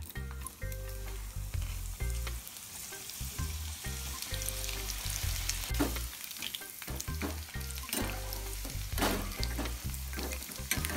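Bitter gourd slices sizzling as they deep-fry in hot oil in a small metal pan. A slotted metal spoon scrapes and clinks against the pan several times as it stirs them.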